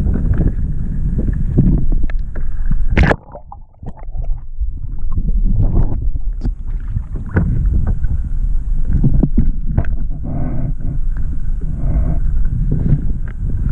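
Choppy water sloshing and slapping against a kayak hull close to the microphone, with rough wind noise and many short splashes. About three seconds in there is a sharp crack, then the sound goes suddenly muffled and quieter for a second or so before the slosh returns.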